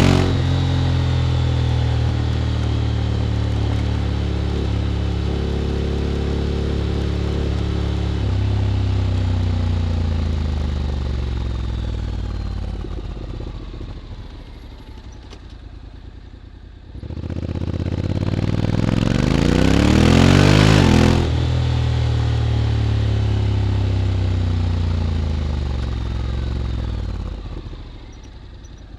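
Honda X-ADV 750's parallel-twin engine running through an SC-Project titanium slip-on exhaust while riding. Revs ease down for the first half and settle low. About 17 s in the throttle opens and the note climbs for a few seconds. It then eases off again and drops toward idle near the end.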